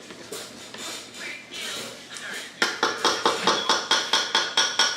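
Cake batter being mixed by hand, a utensil striking the sides of a mixing bowl in quick, even strokes about four times a second, the bowl ringing with each stroke. The strokes start about halfway through.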